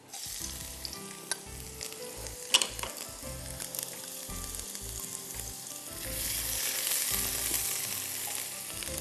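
Mustard seeds and ginger sizzling in hot oil in a nonstick wok as they are stirred with a spatula, with a few sharp clicks. The sizzle grows louder about six seconds in.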